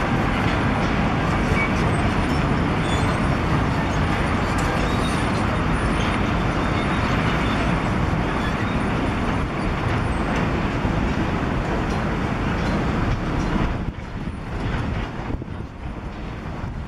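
Heavy diesel machinery running steadily: a Komatsu PC120 hydraulic excavator working, with a concrete mixer truck close by. The sound drops noticeably in level near the end.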